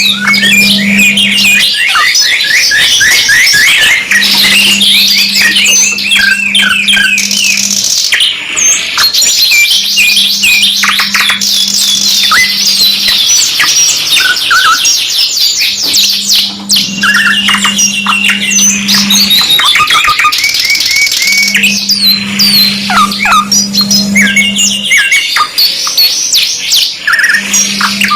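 Domestic canaries singing continuously in fast, rolling trills and chattering phrases, one run of notes following another with hardly a break. A low steady hum comes and goes every few seconds beneath the song.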